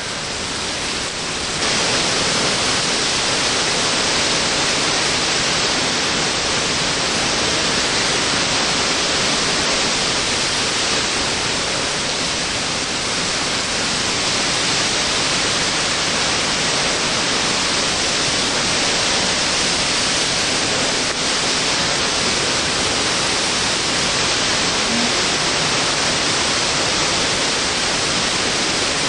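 Category three hurricane's wind and driving rain: a loud, steady rushing noise that steps up about two seconds in and holds without a break.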